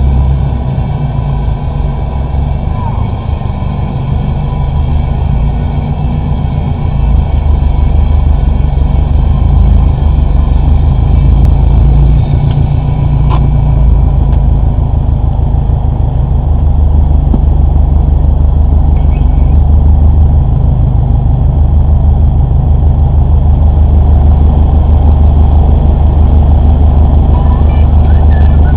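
Subaru Impreza WRX STI running, heard from inside the cabin: a steady low engine sound together with the climate-control fan blowing with the air conditioning on to clear fogged windows. It grows louder about seven seconds in and then holds steady.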